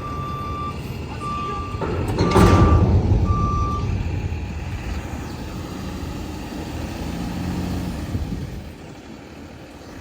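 Truck's reversing alarm beeping in short, even pulses, stopping about four seconds in, over a low engine rumble. A loud rushing hiss comes in about two seconds in.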